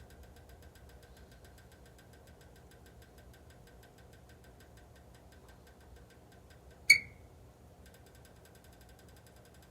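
HELLER electric heater running with a faint steady hum and a fast, even, faint ticking, with one sharp ringing click about seven seconds in, after which the ticking pauses for about a second. The owner records these as abnormal noises from the heater.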